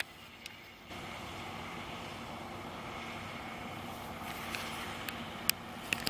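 John Deere 6210R tractor engine running steadily while ploughing, a faint hum that starts about a second in, with a few sharp clicks near the end.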